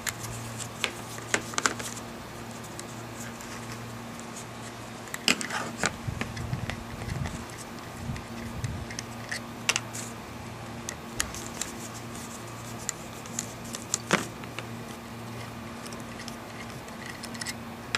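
Scattered small metallic clicks and clinks of a hand driver and bolts being backed out of an aluminium automatic-transmission valve body and set down on the bench, over a steady low hum.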